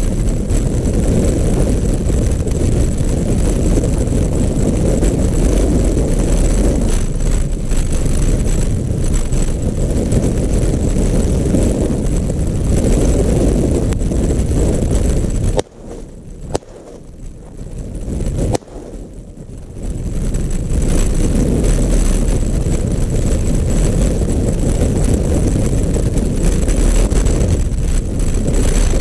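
Strong gusting wind buffeting the camera microphone, a steady low rumble that drops away twice briefly about halfway through.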